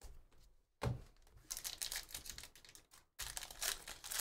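Foil trading-card pack wrapper crinkling and tearing as it is ripped open by hand. The crackles start sharply about a second in and pause briefly near the end before starting again.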